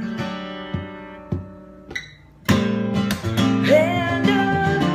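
Acoustic guitar song: a strummed chord rings out and fades, with a few single plucked notes, then the strumming comes back in loudly about halfway through and a voice starts singing near the end.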